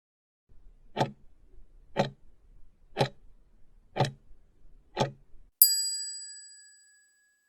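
Countdown timer sound effect: five clock ticks a second apart, then a bright bell ding that rings out and fades over about a second and a half, marking the end of the answer time.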